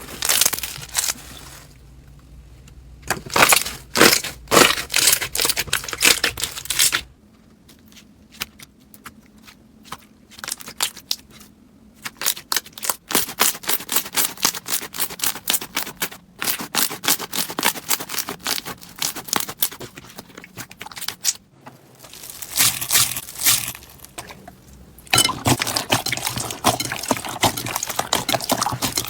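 Slime being squeezed, poked and stretched by hand, giving runs of sharp clicks and crackling pops. A very rapid string of clicks falls in the middle, and a dense, steady crackle comes near the end.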